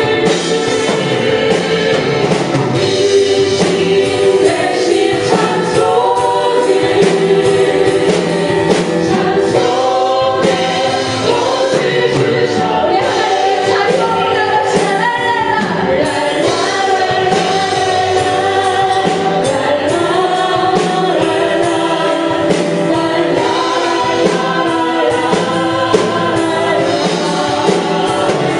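Live worship music: many voices singing a gospel praise song together over a full band with drums.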